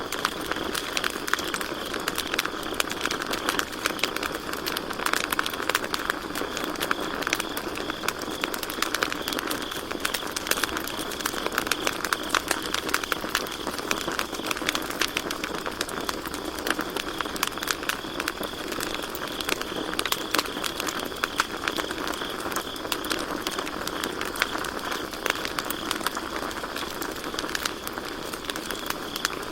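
Campfire crackling, with a dense run of small pops and snaps from the burning wood. Behind it, crickets keep up a steady high trill.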